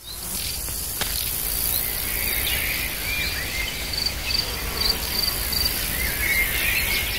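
Forest ambience: a high, steady insect trill that pulses in stretches about halfway through, with scattered short chirps over a constant hiss.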